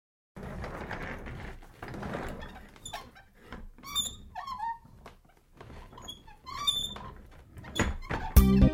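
Scattered short squeaks and whining glides over a soft rushing noise, then music with a strong beat starts near the end.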